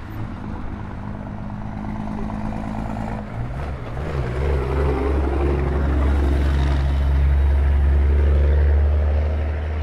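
Boeing E-3D Sentry's four turbofan engines at taxi power: a low rumble over a deep, steady hum that swells from a few seconds in to its loudest near the end.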